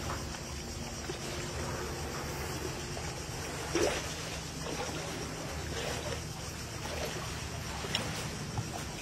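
Shallow sea water lapping and sloshing against rocks, with a louder splash about four seconds in and a smaller one near eight seconds, over a low steady rumble.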